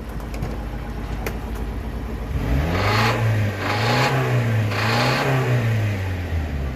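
Subaru Sambar minitruck engine idling, then revved from about two and a half seconds in and held at mid revs, with three short bursts of harsh noise as the revs surge, before dropping back near the end. The owner thinks the noise, which goes away at very high revs, may be a baffle in the exhaust.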